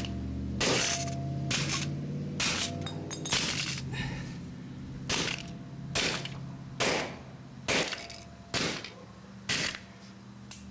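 Western Digital hard drive running with its cover off: the spindle motor hums steadily while sharp clicks come about once a second. The drive is one that needs repair.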